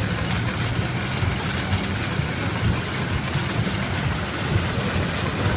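Steady low rumble of an engine running, with no change in pitch and no distinct strokes.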